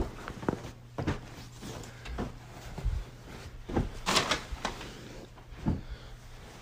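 Throw pillows being grabbed and tossed off a bed one after another: a string of soft thuds at uneven spacing, roughly one a second, with fabric rustling between them. The loudest moment is a rustling swish about four seconds in.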